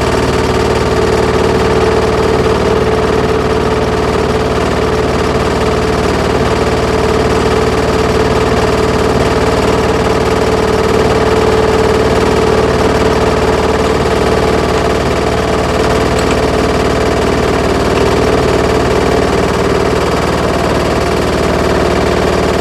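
Land Rover Series 2 engine idling steadily at tick over, a loud, even mechanical run.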